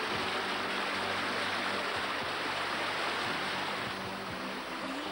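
Small waterfall pouring over rocks: a steady rush of water.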